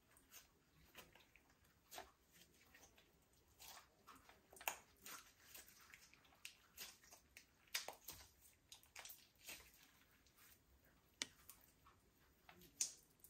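Faint slime being squished and kneaded by hand, giving irregular little wet clicks, pops and squelches, a few sharper pops standing out near the middle and near the end.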